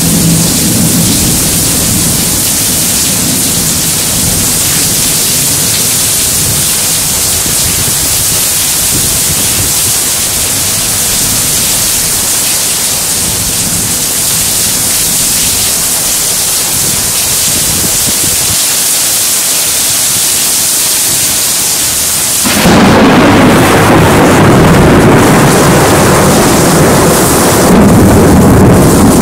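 Very heavy rain pouring in a thunderstorm, a steady hiss with a low thunder rumble near the start. About three-quarters of the way through, the sound turns suddenly louder and deeper, a heavier rush that carries on.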